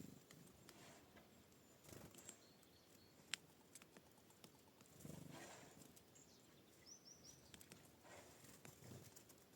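Faint Eurasian nuthatch calls, a quick run of three short high notes about seven seconds in, over quiet outdoor ambience. Scattered sharp taps and clicks throughout, the loudest a single sharp click about three seconds in.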